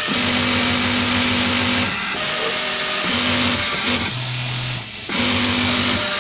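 Yamato industrial flatlock sewing machine running at speed while stitching, with a steady mechanical hum. The sound dips briefly about four seconds in and picks up again about a second later.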